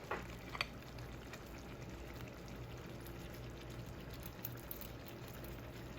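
Chicken drumsticks set into a pan of simmering salsa sauce: two light knocks within the first second, then faint steady liquid sounds over a low hum.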